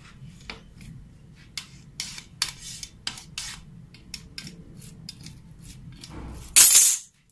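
Backing liner being peeled off strips of double-sided tape stuck to a board: a run of short crackling rips and finger taps, with one louder rustle lasting about half a second near the end.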